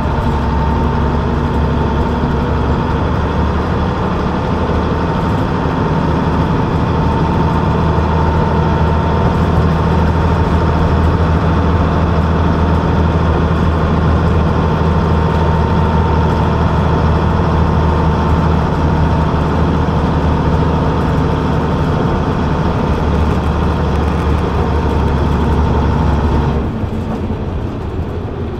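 Leyland Atlantean double-decker's rear-mounted Leyland O.680 diesel engine running steadily under way, heard from the back seat above it. About two seconds before the end the engine note drops and goes quieter.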